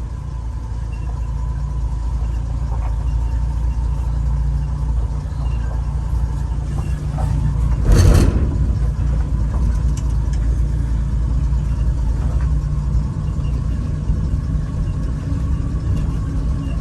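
1975 AM General DJ5-D Postal Jeep's engine running steadily at low speed. One loud thump comes about eight seconds in.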